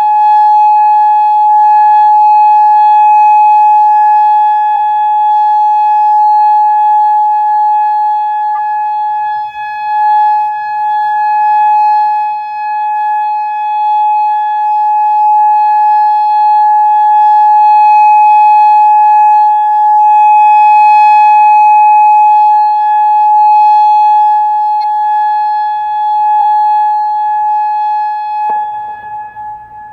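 Federal Signal Modulator 6048 electronic outdoor warning siren sounding its steady Alert signal: one loud, unwavering high tone that cuts off near the end.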